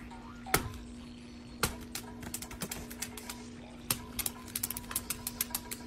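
A cat's claws tapping and clicking on a tablet's glass screen: a few sharp taps at first, then a quick flurry near the end, over a steady low hum.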